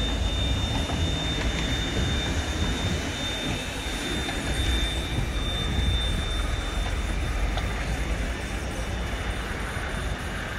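Electric tram running on street track: a steady rumble with a thin high whine held through most of it.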